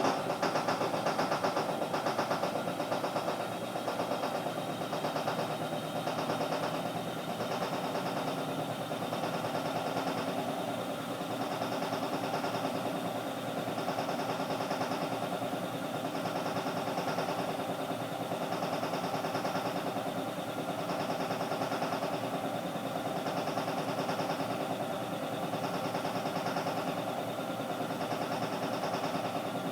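Kenmore Elite Quiet Pack 2 washing machine running with a loud, steady mechanical noise, several steady tones under a rhythmic swell that repeats quickly at first and slows to about one every two and a half seconds as the drum turns. The owners suspect a bearing.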